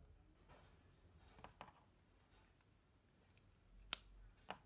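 Near silence broken by a few small plastic clicks from i12 wireless earbuds and their charging case being handled. The sharpest click comes about four seconds in, with another about half a second later.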